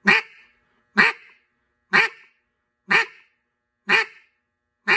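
Double-reed mallard duck call blown in single short quacks, evenly spaced about one a second, six in all. Each quack is a short burst of air cut off with the tongue, with the hand cupped around the end of the call for back pressure.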